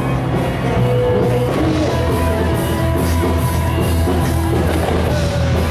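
Live rock band playing: electric guitar and bass over a steady drum beat.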